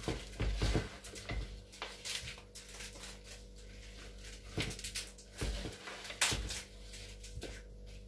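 Gloved hands scooping potting soil and pressing it down in a plastic flowerpot: irregular rustles and soft knocks against the pot.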